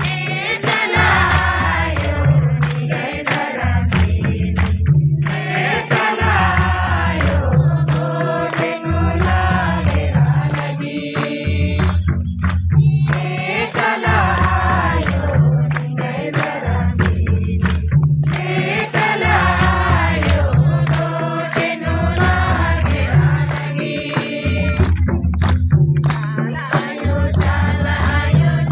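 Devotional bhajan song: voices singing a melody over a steady beat, with a deep drum pattern and a shaker or jingle striking about twice a second.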